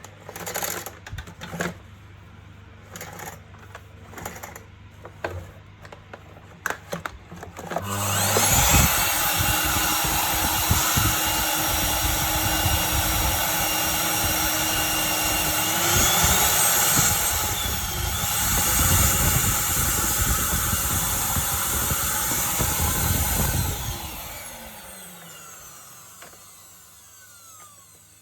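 A few plastic clicks and knocks, then the Electrolux AirMAX ZAM6240 vacuum cleaner's motor switches on, whining up to speed. It runs steadily for about sixteen seconds, its pitch rising and falling briefly around the middle, then is switched off and winds down with a falling whine.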